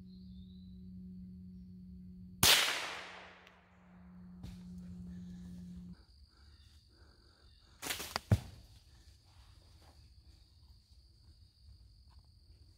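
A single gunshot about two and a half seconds in, its report echoing and dying away over a second or so. A couple of sharp knocks follow about eight seconds in.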